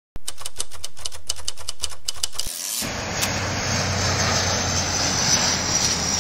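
A quick run of sharp clicks, like typing, lasting about two and a half seconds. Then a twin-engine turboprop airliner passes low overhead: a loud rushing noise with a high whine that slowly falls in pitch.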